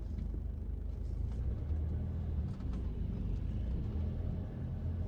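A car driving, with a steady low road and engine rumble.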